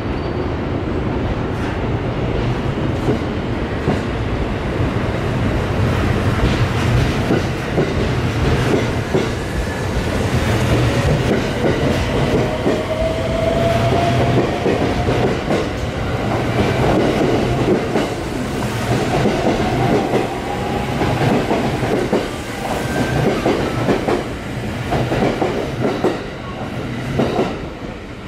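JR West limited-express electric train pulling out of the platform: its motor whine rises in pitch as it gathers speed, and in the second half the wheels clack rhythmically over the rail joints.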